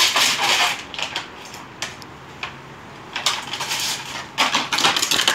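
A dog playing with a plastic bottle on concrete: irregular crackling crunches and clattering scrapes, loudest at the start and again near the end.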